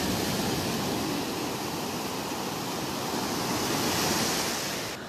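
Small sea waves breaking and washing up a sandy beach: a steady rushing surf that swells about four seconds in, then drops off sharply just before the end.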